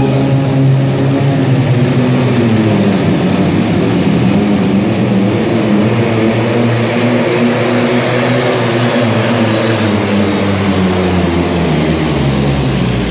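Volvo pulling truck's diesel engine at full throttle as it drags the pulling sled down the track, loud and steady, with a thin high whine above the engine note.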